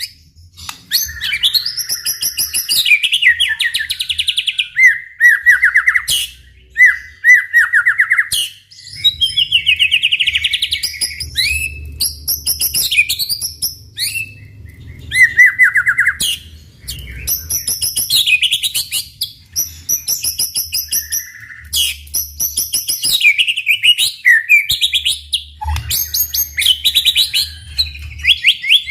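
White-rumped shama singing vigorously: a long run of varied phrases of rapid trills, chattering notes and clear whistles, one after another with short pauses.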